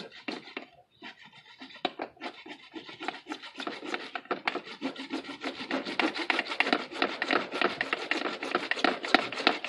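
Hand saw cutting through hollow PVC pipe in back-and-forth rasping strokes, sparse and uneven at first, then steady, quicker and louder from about four seconds in.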